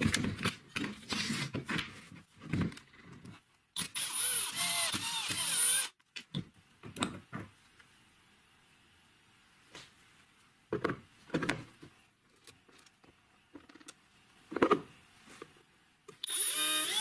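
Clicks and knocks of metal tool parts being handled and set down as an angle grinder is taken apart. About four seconds in, a power drill runs for about two seconds. Near the end, a drill starts up and bores into a PVC pipe cap.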